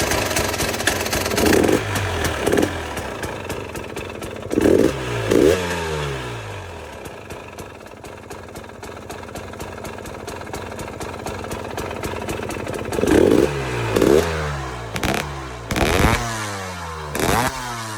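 KTM 300 XCW TPI's fuel-injected two-stroke single running, blipped up in short revs in two clusters with steadier idling between, each rev falling back quickly. It is running with the correct crankcase-pressure and ambient sensors now fitted, which the owner calls way better.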